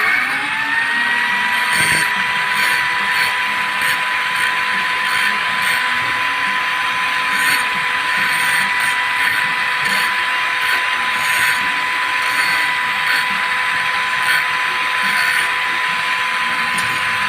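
Angle grinder, mounted upside down as a cut-off saw, spinning up about half a second in and then running at a steady high whine.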